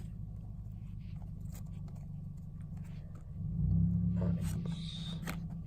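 Rustling and crinkling of a foil trading-card booster pack and its cards being handled. There are scattered small clicks, and the handling gets louder from about three and a half seconds in, over a steady low hum.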